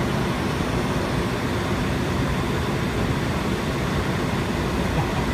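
Steady rushing cabin noise on an airliner's flight deck in high-altitude cruise, the airflow and air-conditioning hiss that fills a cockpit, holding level without change.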